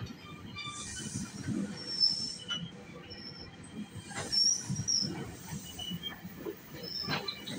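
GO Transit bilevel passenger coaches rolling past with a low rumble of wheels on rail. Short high-pitched wheel squeals come and go, the loudest about two seconds in and again about four and a half seconds in, with scattered clicks.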